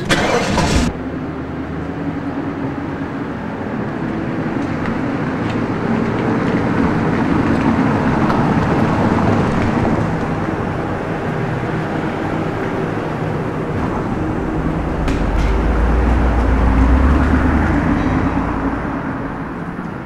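A Mercedes-Benz saloon driving over cobblestones, its engine running steadily and growing louder as it comes closer, with a deep rumble as it passes close by near the end. A brief loud noise comes at the very start.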